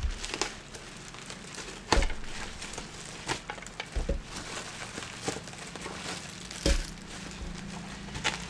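Packaging crinkling and rustling as a parcel is handled and unwrapped by hand, with a few dull knocks about 2, 4 and 7 seconds in.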